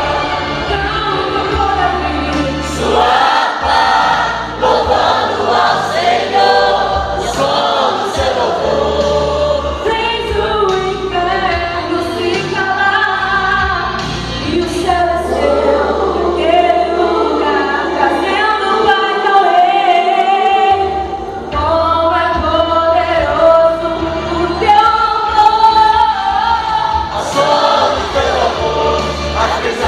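A choir singing a gospel worship song with instrumental backing and a steady bass line.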